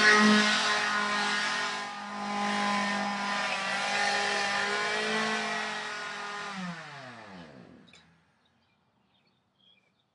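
Two-stroke chainsaw running at steady high revs, then winding down with a falling pitch and dying out about eight seconds in. Near silence follows.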